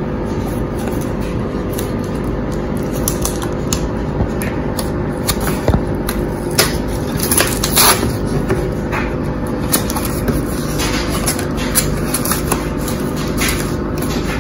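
Cardboard box being handled and opened by hand: scattered scraping, rubbing and tearing of cardboard, with sharper clicks and snaps in the middle, over a steady low background hum.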